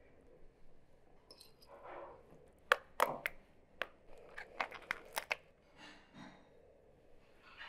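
Kitchen handling sounds as a salad is layered on a baking tray: a spoon working grated carrot off a plate, with soft rustling and scattered sharp clicks and taps of utensil on dish, loudest about three seconds in and again around five seconds.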